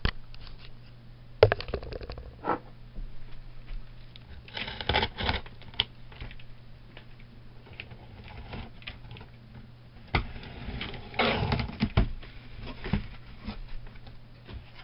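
A cardboard shipping box being opened by hand: a knock, then scattered clicks, scrapes and rustles of tape and cardboard flaps, louder around five seconds in and again near eleven seconds. A faint steady low hum sits under it.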